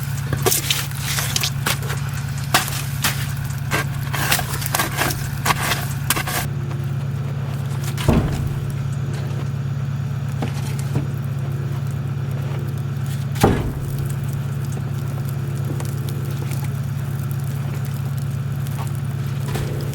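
A motor running with a steady low hum. Over it come quick clicks and rattles for about the first six seconds, then two single thumps, one about eight seconds in and one near thirteen seconds.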